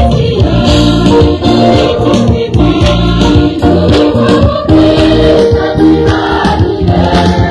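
Church choir singing a Kirundi communion hymn through a sound system, several voices holding sustained notes over a steady beat.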